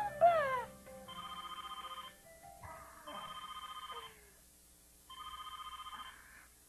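Cordless telephone ringing three times with an electronic trilling ring, each ring about a second long and about two seconds apart.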